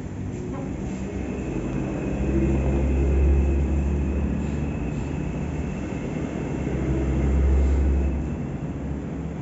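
Washing machine running with a steady low motor hum that swells twice, with a faint high whine over it.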